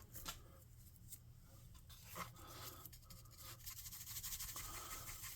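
Faint scratchy brushing of a small makeup brush dry-brushing paint, with a few light clicks early and a steadier scrubbing hiss in the second half.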